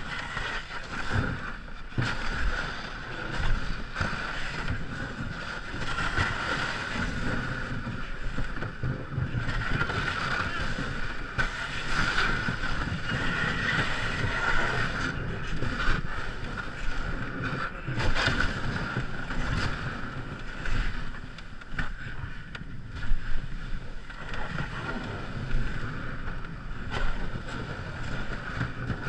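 An ice canoe under way on the river: steady wind and water noise on the microphone, with a few scattered knocks, the loudest about 23 seconds in.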